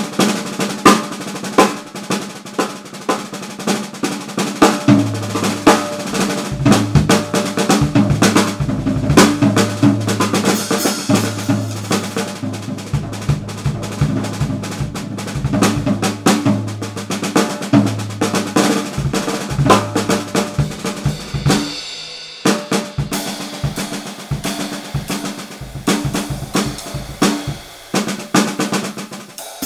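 Drum kit being played, busy snare work over bass drum, with a brief break about 22 seconds in before the playing resumes.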